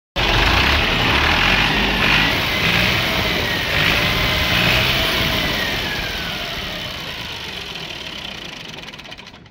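Fiat 480 tractor's three-cylinder diesel engine running hard, then its revs sliding down as the sound dies away over the last few seconds. The tractor's pickup is weak.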